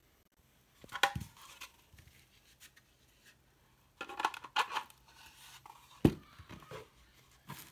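Hard 3D-printed plastic blaster parts being handled: clicks, scrapes and light knocks as the pieces are picked up and turned, with a sharp knock about a second in and a loud thump about six seconds in as the large body part is set down on the table.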